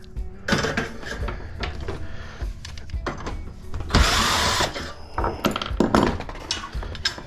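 Power driver spinning a bolt out of a cast aluminum high jump stand, in one short loud burst about four seconds in, among clicks and knocks of metal parts being handled.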